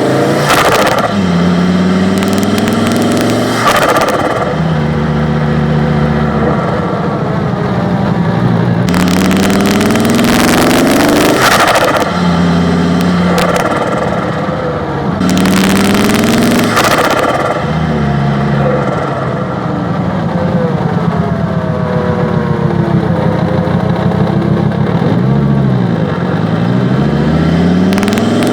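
Fiat Marea's turbocharged engine, heard from inside the engine bay, revving up through the gears several times, with the pitch climbing and dropping back at each shift. Loud rushing bursts come and go: turbo flutter, the boost surging back through the turbo and out the air filter when the throttle closes, because no bypass valve is fitted.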